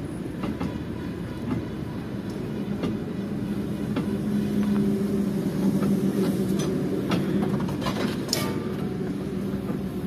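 A truck's engine running with a steady drone that grows louder about four seconds in, with scattered knocks and rattles.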